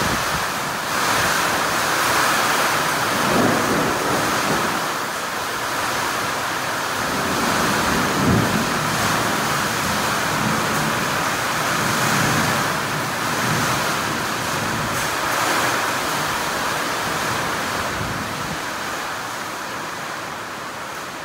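Heavy wind-driven rain pouring down steadily, with a few low rumbles about three and eight seconds in. The downpour eases slightly near the end.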